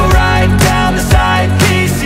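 Background pop music with a steady drum beat, about two beats a second, over sustained bass notes.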